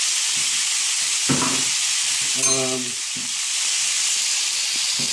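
Chicken, mushrooms and grated carrot frying in a hot pan, a steady sizzle, while a wooden spoon stirs the filling.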